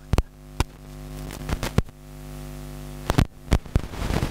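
Steady mains hum in the microphone and sound system, broken by a scattering of sharp clicks and knocks.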